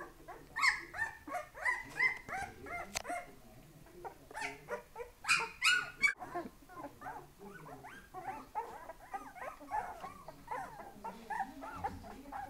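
Very young puppies whining and yelping: a quick run of short, high calls, several a second, with the loudest yelps about five seconds in.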